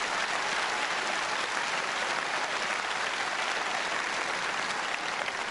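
Large arena crowd applauding steadily, a dense mass of clapping that starts to die down near the end.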